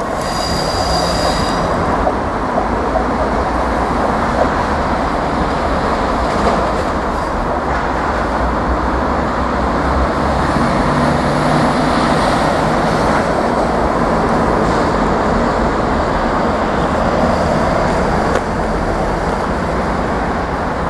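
Class 158 diesel multiple unit pulling away under power, its diesel engines running with a steady rumble as its wheels run over pointwork. A brief high squeal from the wheels comes in the first second or so.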